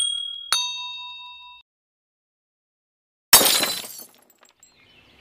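Two bright chime-like dings about half a second apart, each ringing out for about a second. About three seconds in, a sudden glass-shattering sound effect fades quickly.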